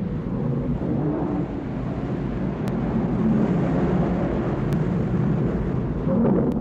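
A steady low rumble, with no clear rhythm or pitch changes.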